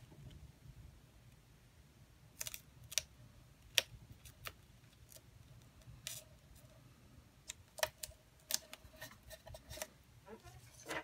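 Paper being handled on a scrapbook page: small paper gift embellishments are tucked behind a photo mat. About two seconds in, irregular light clicks and taps begin, with some paper rustling between them.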